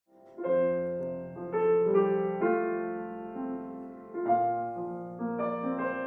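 Grand piano playing a slow run of chords, each struck and left to ring and fade before the next.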